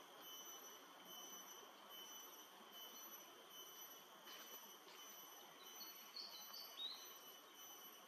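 Faint natural ambience: a steady high-pitched insect drone, with a short run of high bird chirps about six seconds in.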